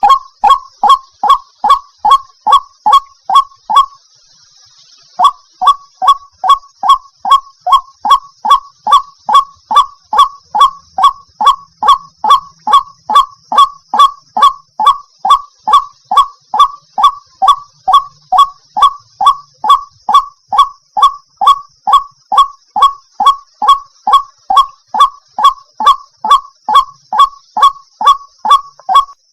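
White-breasted waterhen (ruak-ruak) calling: one harsh note repeated about three times a second, with a brief pause about four seconds in. This is the call the uploader describes as a female calling a male.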